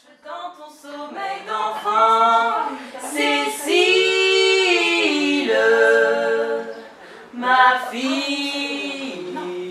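Women singing a cappella with no instruments, in long held notes, with a short break about seven seconds in.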